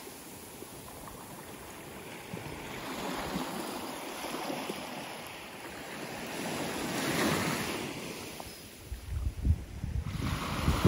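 Small waves lapping and washing up on a sandy beach, swelling and falling back, loudest about two-thirds of the way through. Wind gusts buffet the microphone near the end.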